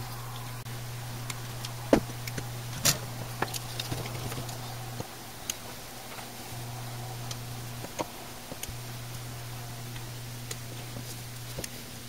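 Scattered light clicks and taps as a soldering iron and desoldering wick are worked against the pads of a small circuit board on a workbench, over a steady low hum.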